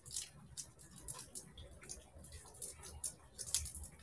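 Burning Panini Prizm trading card crackling faintly, with irregular small ticks and pops several times a second; the loudest pops come about three and a half seconds in.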